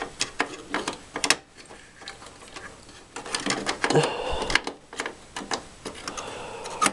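A RAM module being pushed by hand into its memory slot: a run of small plastic clicks and ticks, with scraping as the module rubs against the slot and its latches.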